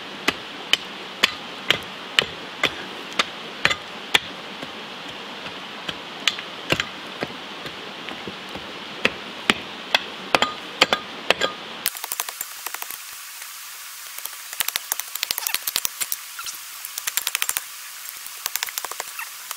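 A pick striking rocky ground in a trench, sharp blows about twice a second. About twelve seconds in, the blows give way to quicker, lighter clicking and scraping of loose rock.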